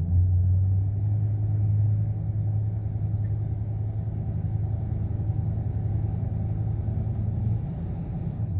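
Ford 6.8-litre V10 engine running with a steady low drone that eases off about seven and a half seconds in; the engine has a misfire.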